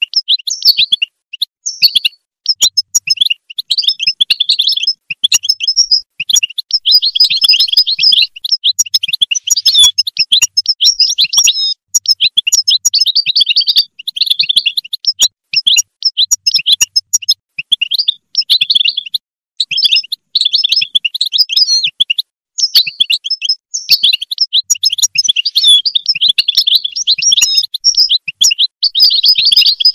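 European goldfinch singing: fast, tinkling twittering phrases, one after another with short pauses between them.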